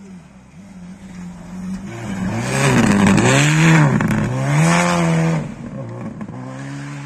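Rally car passing on a snowy stage. Its engine builds as it approaches, is loudest about three to five seconds in, with the pitch dipping and climbing as the driver comes off and back on the throttle. It then drops away and revs up again, quieter, as the car accelerates off out of sight.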